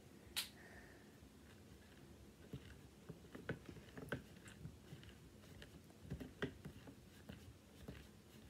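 A small plastic spoon stirring freshly activated glue slime in a plastic bowl: faint, irregular clicks and squishy ticks as the spoon scrapes and taps the bowl and the slime begins to clump.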